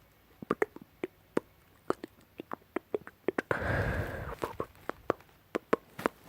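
Mouth sounds: a quick irregular run of wet mouth clicks and lip smacks, with one heavy breath lasting about a second, starting about three and a half seconds in.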